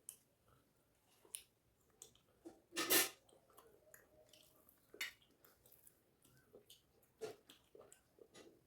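A person chewing and eating rice with fish curry: scattered short, wet mouth clicks and smacks, with a louder half-second noise about three seconds in.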